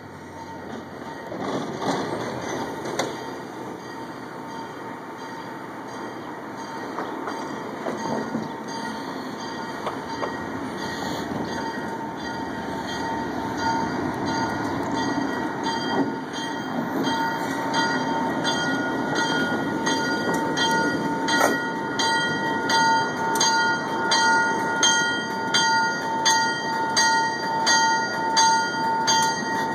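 1964 ALCO C424 diesel locomotive approaching at low speed, its V16 engine running louder as it draws near. A bell rings over it at about one and a half strokes a second, faint at first and growing louder through the second half.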